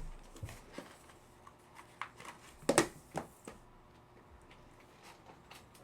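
Trading cards and pack wrappers being handled: scattered soft clicks and taps, with a sharper pair of clicks about three seconds in.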